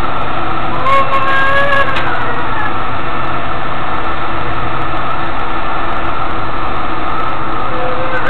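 Steady running noise of a tram heard from inside the passenger car. About a second in, a pitched whine with overtones holds for about a second, then falls away, and a shorter one comes near the end.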